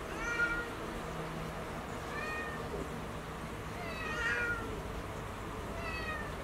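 Cat meowing: four short meows, roughly two seconds apart.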